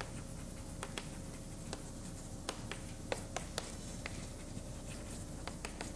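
Irregular light taps and clicks of writing on a board, over a faint steady hum.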